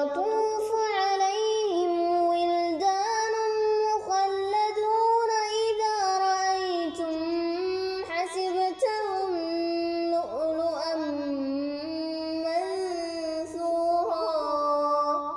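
A high-pitched voice chanting Quran recitation in a long, drawn-out melodic line, holding and bending sustained notes with hardly a pause. It dies away near the end.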